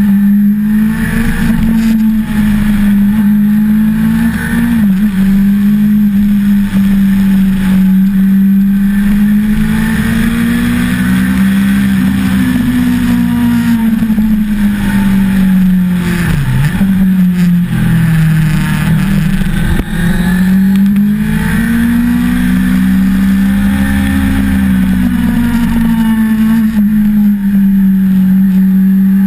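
1988 Suzuki GSX-R750J Slingshot's inline-four engine heard on board under way, its revs rising and falling through the bends, with a sharp drop in revs a little past halfway before it climbs again. Wind rush over the microphone runs under the engine.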